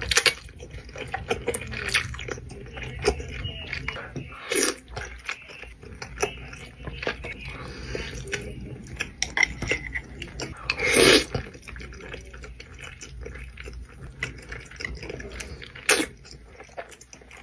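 Close-miked eating of Buldak instant noodles: wet chewing and small mouth clicks, broken by a few loud slurps, about four and a half seconds in, near the middle and near the end.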